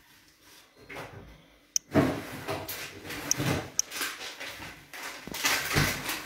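Kitchen handling sounds: a sharp click about two seconds in, then a few seconds of scattered knocks and rustling.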